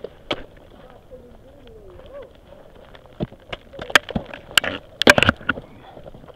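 Ice axes and crampons striking hard snow and ice while climbing: a run of sharp strikes, one early and most bunched between about three and five and a half seconds in.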